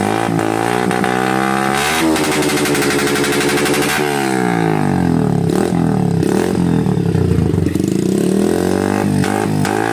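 Honda TMX 125 Alpha's single-cylinder four-stroke engine breathing through an aftermarket exhaust pipe, revved up and down several times, its pitch rising and falling with each blip of the throttle.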